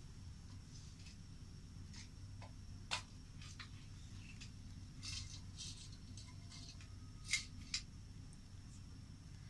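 Small clicks and ticks of hands picking through cardamom pods and their little packet, scattered unevenly, the sharpest about three seconds and seven seconds in, over a steady low hum.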